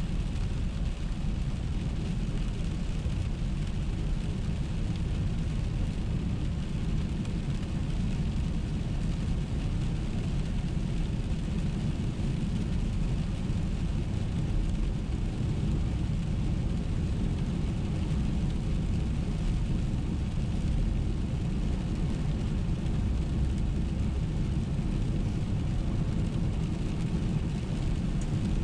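Steady low rumble of a car driving on a wet road, heard from inside the cabin, with a fainter hiss above it.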